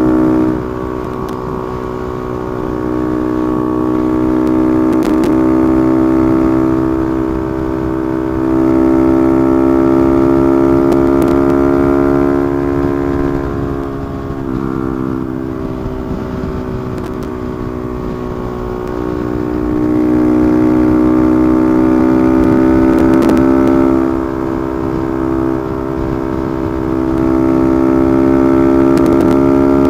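Honda Monkey's single-cylinder engine running at highway speed, its note swelling louder and easing back a few times, with wind noise on the microphone.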